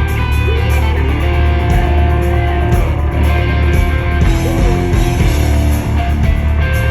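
Rock band playing an instrumental passage: a lead electric guitar with bent notes over bass and drums.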